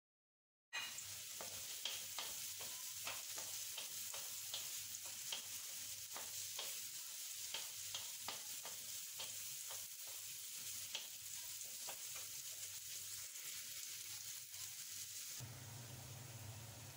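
Chopped garlic, onion and ginger sizzling in a nonstick wok while a wooden spatula stirs them, scraping and tapping against the pan. The sizzle starts suddenly about a second in; near the end it drops and a low hum comes in.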